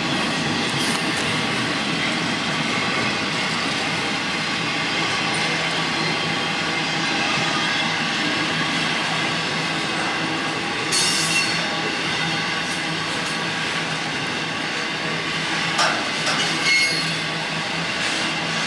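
Freight train cars rolling past on steel rails in a steady rumble, with a few sharp clanks and a brief wheel squeal in the second half.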